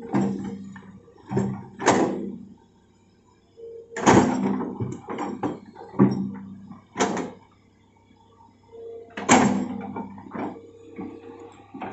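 Hitachi hydraulic excavator working loose soil with its bucket: the engine runs under a string of sharp clanks and knocks from the bucket and arm, about one every second or two, with two brief lulls.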